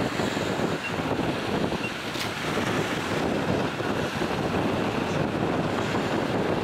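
Strong, gusty wind buffeting the microphone, with choppy water washing against a rocky shore underneath.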